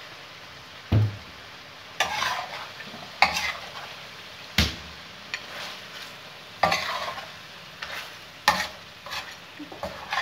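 Metal spatula stirring and scraping mutton on a hot tawa: about six sharp clanks and scrapes a second or two apart, each followed by a short burst of sizzling.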